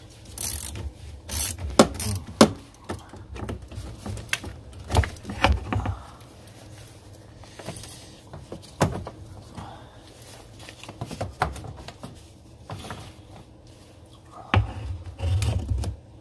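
Ratchet and socket working a stuck fastener on a car battery's mounting: irregular metallic clicks, knocks and scrapes, the loudest about two seconds in. Bursts of low rumble come with the tool work in the first few seconds and again near the end.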